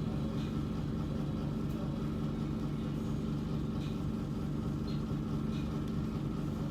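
Steady low mechanical hum with a few faint soft clicks.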